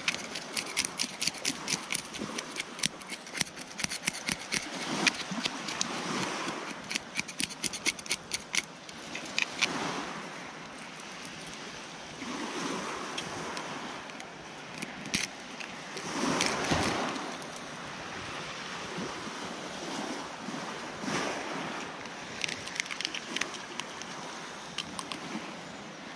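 A knife scraping scales off a whole fish held on a driftwood log, a rapid run of short scrapes for the first nine seconds or so, then only occasional scrapes and cuts as the fish is gutted. Surf washes in the background.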